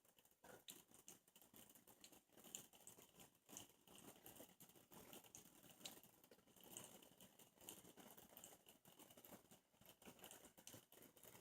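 Near silence with faint, irregular pattering and ticking: an ultrasonic mist maker running in water, churning the surface as it makes fog.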